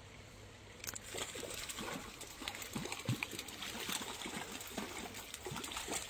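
A hooked brown trout splashing at the water's surface as it is played in close to the bank, a busy run of splashes and drips starting about a second in.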